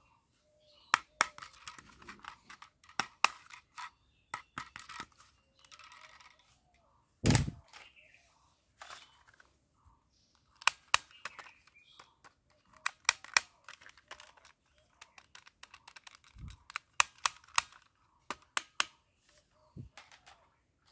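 Plastic toy guns being handled: a run of sharp plastic clicks and rattles, with some rustling. There is one heavy thump about seven seconds in.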